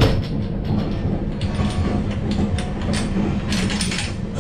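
Running noise of a moving passenger train coach heard in its vestibule: a steady low rumble and hum with irregular rattles and clacks from the carriage. The sharpest knock comes right at the start.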